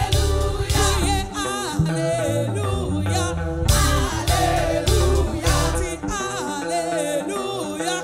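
Live gospel worship music: a woman singing lead, her voice gliding and wavering, over a band with a steady bass line and drums.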